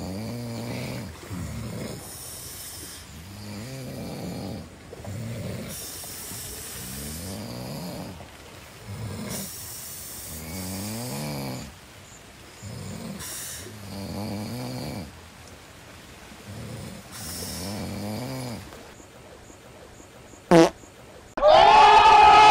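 Several men snoring at once in a tent, overlapping rasping snores every second or two. Near the end a brief sharp sound, then a sudden loud burst of a crowd of young men shouting.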